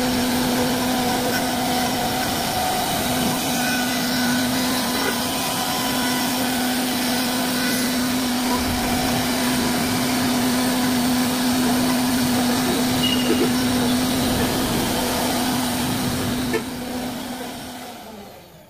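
Wood-carving CNC router running with a steady hum and a noisy cutting sound, fading out near the end.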